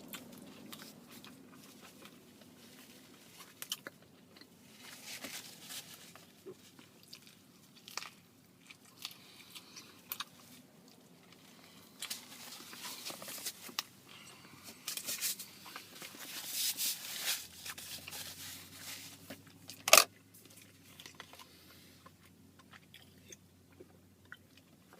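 A person eating a barbecue chicken flatbread sandwich: irregular biting, crunching and chewing noises that come and go, with one sharp click about twenty seconds in.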